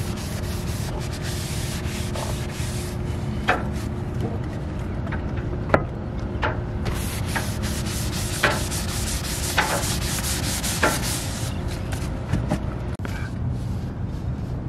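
Rag and bristle brush rubbing over bare plywood as stain is wiped and brushed on: a steady scratchy rubbing with scattered light knocks.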